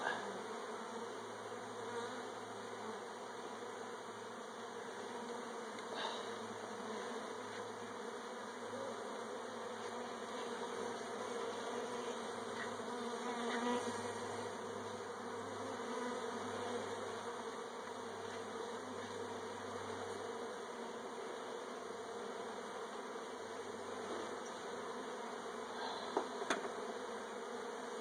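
Honeybees buzzing steadily around an opened hive as combs are lifted out, with a few light knocks about two seconds before the end.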